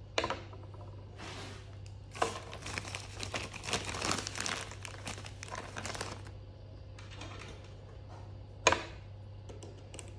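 Crinkling and rustling with many small clicks over a steady low hum, with two sharp knocks, one just after the start and one near the end.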